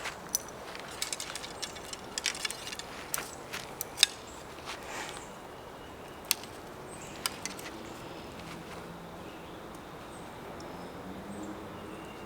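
A scattered series of light clicks and clinks over the first half, the sharpest about four seconds in, then only faint steady outdoor background.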